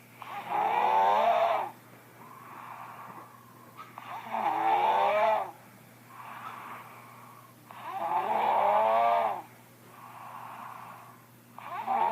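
A person snoring loudly: a loud snore with a wavering pitch about every four seconds, four in all, with a softer breathy sound between each.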